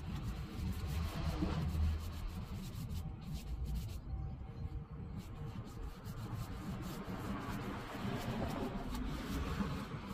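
Paintbrush rubbing stain onto a wooden door, swishing strokes that swell about a second in and again near the end, over a steady low rumble.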